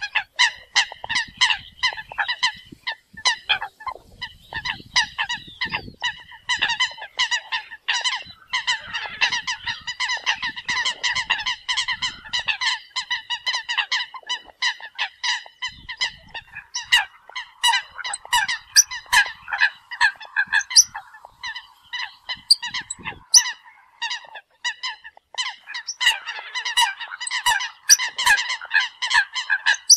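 A flock of Eurasian coots calling: many short, sharp calls, several a second, overlapping without a break.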